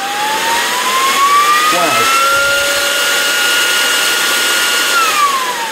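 Internal cooling fan of a Tuxing 300-bar mini PCP compressor spinning up with a rising whine over rushing air, running noisy and steady at full speed, then winding down with a falling whine near the end.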